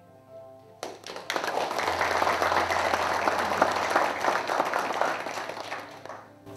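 A small audience applauding. The clapping starts about a second in and dies away near the end.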